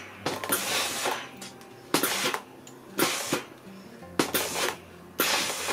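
Cecotec steam iron being pressed and moved over fabric on an ironing board: several knocks of the iron against the board with short hisses, about one a second.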